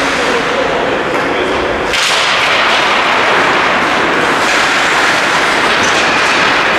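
Ice hockey play in a rink: a steady loud scraping hiss of skates on the ice, with a sharp hit, such as a stick or puck strike, about two seconds in, after which the noise grows a little louder.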